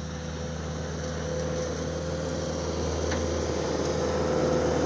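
Skid-steer loader's diesel engine running steadily, a low hum with a thin steady whine above it, slowly growing louder as the machine approaches.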